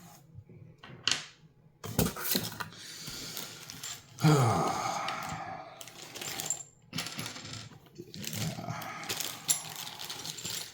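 Small stones and hard pieces clinking and clicking against each other as they are handled, with rustling of packaging in between. The loudest clatter comes about four seconds in.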